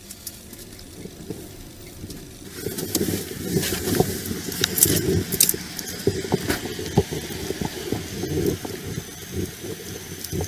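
Rustling, clinking and rattling of a police officer's body-worn camera and duty gear as he moves, over vehicle noise; the handling noise grows louder about two and a half seconds in.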